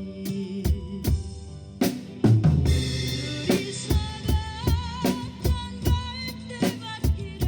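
Drum kit played live over a recorded backing track: a steady kick-and-snare beat with a loud cymbal crash about two seconds in, under a wavering, sustained melody line.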